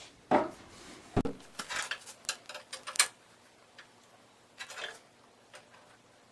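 A run of light clicks and knocks, with a dull thump about a second in and a quick cluster of sharp clicks before the three-second mark, then a few faint ticks. These are small pieces being handled and set down in the sled build: oak runners and staples in the saw's miter slots.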